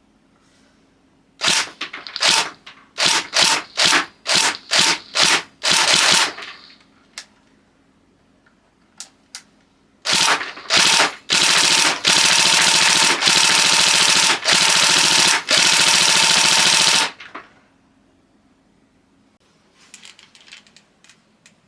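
Airsoft gun firing on full auto: a run of short bursts, a pause, a few single shots, then long unbroken bursts split by brief gaps. Faint handling rattle near the end.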